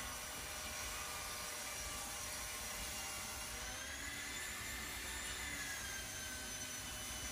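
Table saw running and cutting a chamfer along the edge of a hardwood decking board: a steady motor whine over the hiss of the cut, its pitch wavering slightly.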